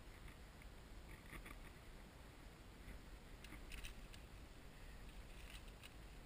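Faint clicks and rustling of rope and a carabiner being handled while a rappel backup (an autoblock) is rigged at the harness, over a low steady rumble.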